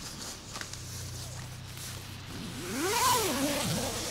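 A man's drawn-out wordless exclamation about three seconds in, rising and then falling in pitch with a breathy rush, over a low steady hum.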